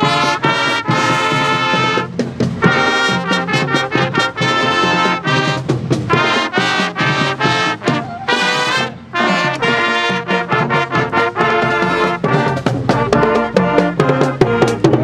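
Marching band playing a tune on trumpets, trombones, sousaphone and saxophone, with drums beating underneath. The drum strokes come through more strongly near the end.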